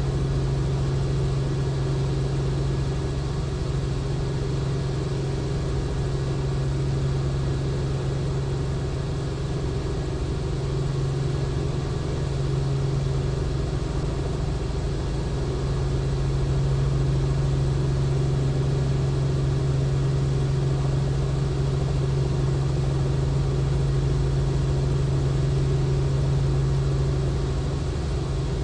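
Robinson R44 helicopter in flight: the steady drone of its piston engine and rotors, with a strong low hum that holds level and grows slightly louder a little past halfway.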